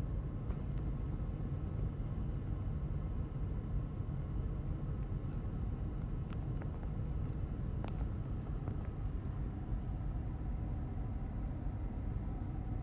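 Steady low rumble of an idling car, heard from inside the cabin, with a few faint clicks about halfway through.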